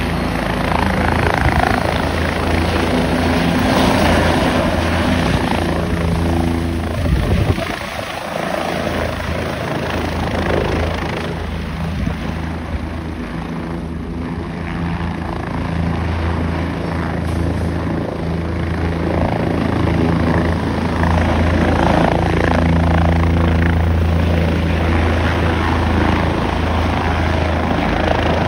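Helicopter rotor and engine noise, loud and steady: one helicopter running on the pad and lifting off, then a second helicopter coming in close to land, growing louder in the last third.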